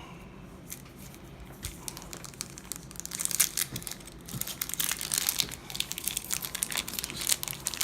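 Foil booster pack wrapper crinkling and being torn open, a dense crackle that starts faint and grows louder about three seconds in.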